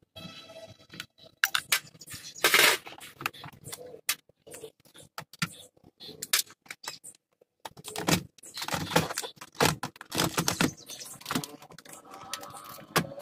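Irregular plastic clicks, knocks and rattles as a Suzuki Mehran's instrument cluster is worked loose from the dashboard and handled. A dense burst of clatter comes about two and a half seconds in, and another busy run comes in the second half.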